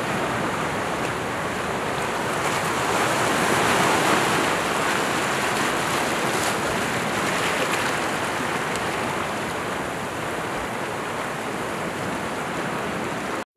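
Sea surf washing and breaking on the shore, a steady rush that swells about four seconds in and then eases; it cuts off suddenly at the very end.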